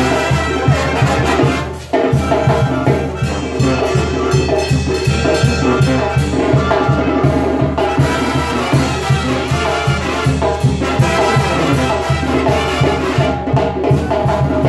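Live Mexican banda brass band playing a cumbia: tuba, trumpets, trombones and a tambora bass drum keeping a steady beat, with a short break about two seconds in.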